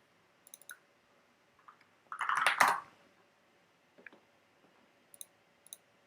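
Computer mouse clicks, a pair near the start and a pair near the end, with a short, louder clatter of computer keyboard keys about two seconds in.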